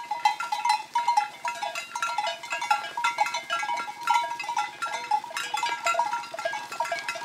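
Bells on a herd of cattle clanking unevenly as the herd walks past, a few fixed ringing pitches repeating, over the low steady running of a small motorcycle engine.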